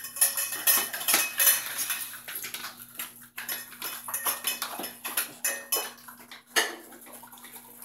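A pack of small dogs eating from food bowls on a tile floor: quick, irregular clinks and clatter of the bowls, with one sharper clack near the end.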